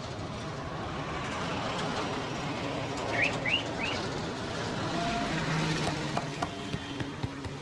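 Steady street traffic noise, with a small bird giving three quick rising chirps about three seconds in. A few light clicks come near the end.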